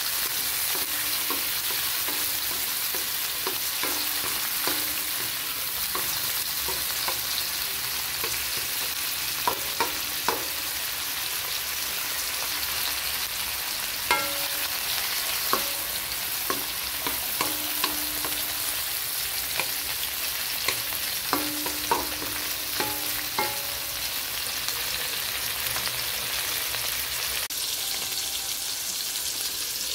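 Garlic, onion and tomatoes sizzling in hot oil in a metal wok, with a wooden spatula scraping and tapping against the pan as they are stirred. The sizzle is a steady hiss, broken by scattered sharp taps of the spatula.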